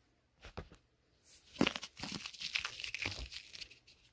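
Wrapping being pulled off a small object by hand: a couple of light clicks, then about three seconds of irregular crinkling and tearing of soft paper wrap.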